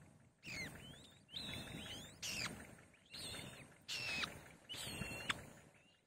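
White-tailed kite nestlings giving high whistled begging cries, about six of them roughly a second apart, each sliding down in pitch, over a faint low rumble.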